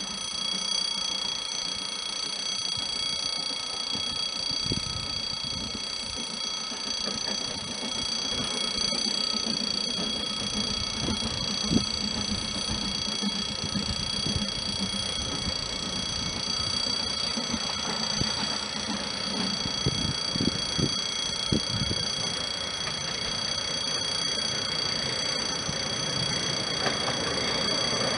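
A level-crossing warning ringer sounds steadily throughout, with several high tones held unchanged. Beneath it the SNCF 140 C 314 steam locomotive approaches, its rumble and beats growing slowly louder toward the end.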